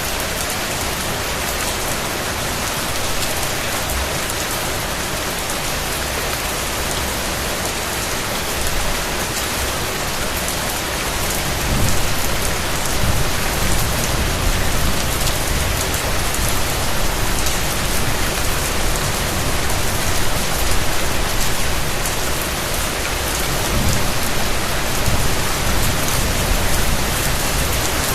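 Steady rain falling, a continuous even hiss of drops. About twelve seconds in it grows a little louder and deeper.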